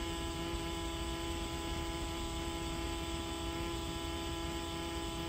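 Electric fuel pump running with a steady hum, holding pressure in a primed Bosch K-Jetronic (CIS) mechanical fuel injection system while the injectors are checked for leaks.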